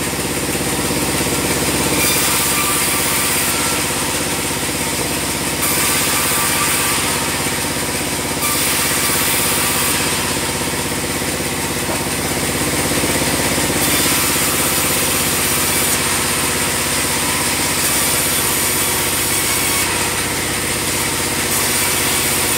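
Band sawmill running steadily, a constant machine drone with a higher hiss that steps up and down every few seconds.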